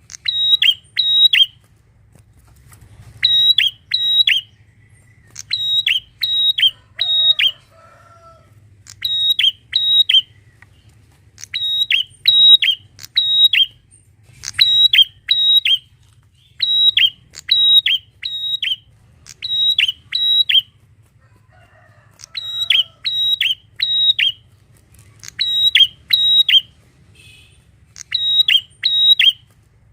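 Prinia (prenjak) calling loudly: sharp, dropping notes in quick groups of two or three, repeated about once a second.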